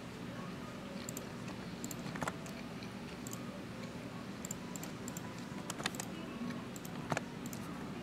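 Typing on a computer keyboard: irregular key clicks, with a few louder taps spread through, over a steady low hum.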